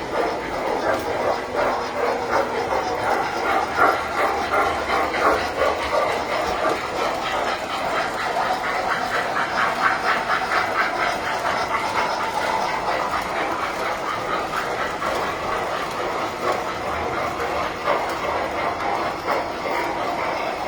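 Tinplate toy trains running on metal track, a steady rapid clicking and rattle of metal wheels on the rails.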